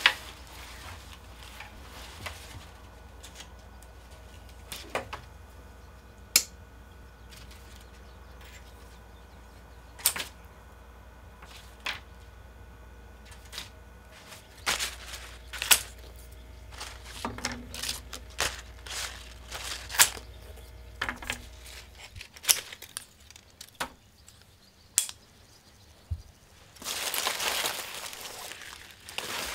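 Hand-work noises: scattered sharp clicks, taps and knocks of things being handled, over a low steady hum that stops about two-thirds of the way through. Near the end there is a couple of seconds of rustling.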